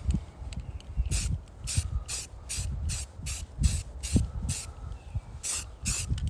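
Aerosol spray-paint can sprayed in about a dozen short hissing bursts, roughly two a second with a brief pause past the middle, laying a flat tan base coat on a rifle. A low rumble runs underneath.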